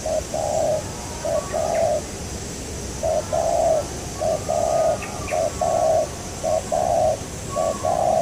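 Spotted dove cooing in a run of two-note phrases, a short coo followed by a longer one, about seven times with a brief pause a couple of seconds in. Faint chirps of other small birds are heard alongside.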